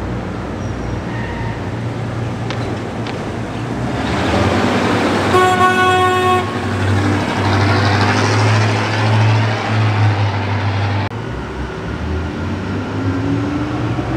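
Classic cars driving past in a convoy, engine and tyre noise swelling as a car passes close by and cutting off abruptly about three quarters of the way through. A car horn toots once for about a second as the car approaches.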